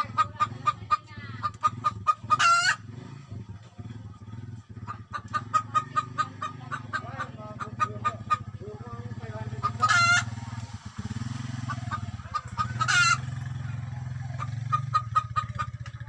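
Domestic hen cackling: runs of rapid clucks that three times break into a long, loud, drawn-out squawk, the first about two seconds in, then about ten seconds in and again three seconds later. A noisy hen like this is, by the owner's account, the sign that she is about to lay an egg.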